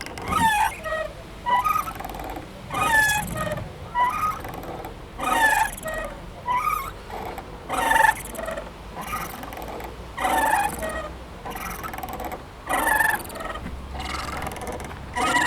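Playground swing squeaking over and over as it swings back and forth, one short gliding squeal about every second or so.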